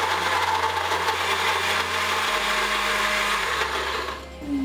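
Countertop blender running on its ice-crush setting, chopping ice in a milkshake mix of milk, ice cream, Nutella and banana. It stops about four seconds in and starts again just before the end.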